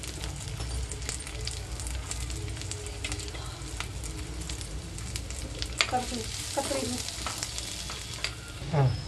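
Sliced onions sizzling in butter in a clay pot, with a steel spoon clicking and scraping against the pot as they are stirred.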